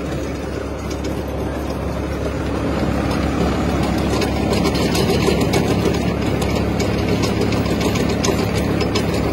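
Farmtrac 60 tractor's diesel engine running steadily under heavy load while its PTO-driven rotavator churns through loose soil, weighed down by men standing on it. The engine keeps pulling without stalling, and the sound grows louder about three seconds in.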